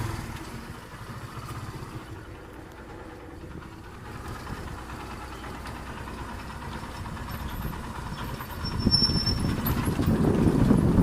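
Kawasaki Barako II motorcycle's single-cylinder engine running through a muffler whose catalytic converter has been drilled open for a freer exhaust. It runs quieter at first and gets louder about nine seconds in.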